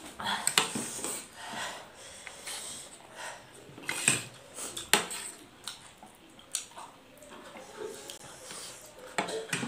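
Forks clinking and scraping on plates of noodles, with a few sharp clicks, mixed with sniffing and hard breathing from eating fiery-hot instant noodles.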